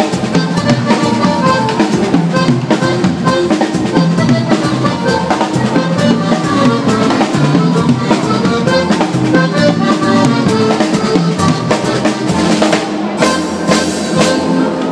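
Live band music with a steady drum-kit beat on cymbals and bass drum, under bass guitar and button accordion.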